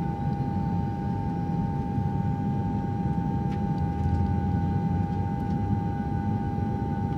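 Steady droning sound effect: one held mid-pitched hum over a low rumble, engine-like and unchanging.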